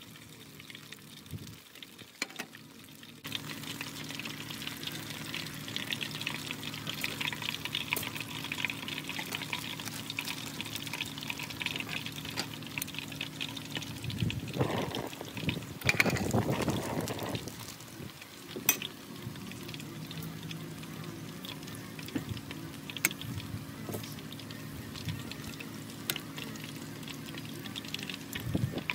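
Batter-coated banana pieces deep-frying in hot oil: a steady crackling sizzle with scattered sharp pops. It gets louder about three seconds in and swells for a few seconds around the middle. A steady low hum runs underneath.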